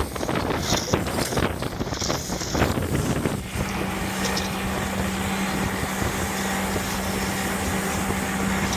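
Wind buffeting the microphone, then from about three and a half seconds in a boat motor running at a steady pitch.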